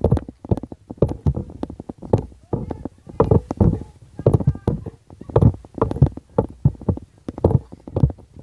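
Indistinct voices of people talking close by, in irregular short bursts with no clear words.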